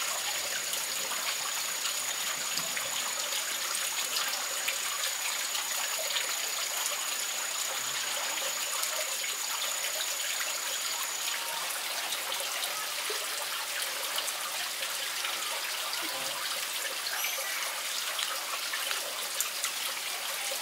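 Steady, even hiss like trickling water, with a thin high steady whine through the first half that stops about halfway, and a few faint high chirps near the end.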